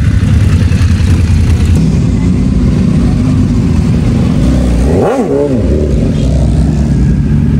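Motorcycle engines running close by in a steady low rumble, with one engine revving up and back down about five seconds in.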